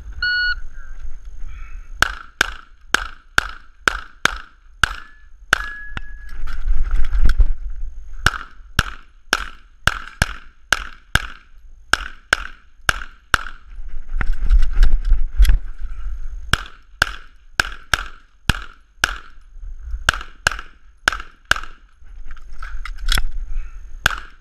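A shot timer beeps once, then a pistol fires a long string of dozens of shots, mostly in quick pairs with short gaps between groups, for a timed USPSA stage run.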